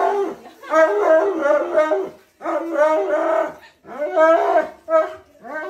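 Husky-type dog howling and 'talking' in a string of wavering, up-and-down woo calls, about five phrases broken by short pauses.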